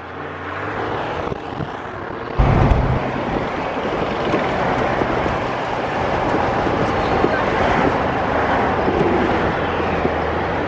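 Car driving at highway speed, heard from inside the cabin: a steady rush of wind with engine and tyre noise. The level rises over the first two seconds, then steps up sharply with a low thump about two and a half seconds in.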